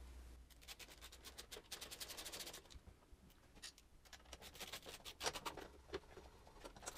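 Faint quick clicking and scraping of a Torx key turning countersunk screws into a KTM SX-F 250 motorcycle frame to hold the rear subframe. The ticks come in two dense runs, the first about half a second in and the second around five seconds.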